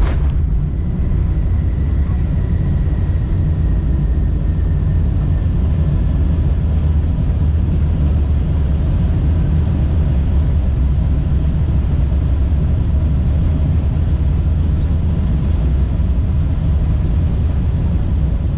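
Boeing 747-8 airliner touching down with a sharp thump just after the start, then a loud steady low rumble of the landing rollout heard from the cabin. A faint whine slowly falls in pitch over the first few seconds.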